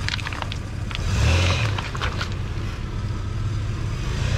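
Toyota 4Runner engine running at low revs as it crawls through a muddy rut, swelling briefly a little over a second in. Scattered crunches and clicks come from the tyres working over mud and stones.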